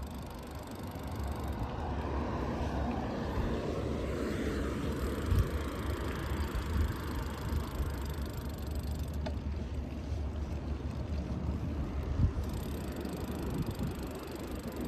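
Steady wind rumble on the microphone and road noise from riding, with a few short thumps.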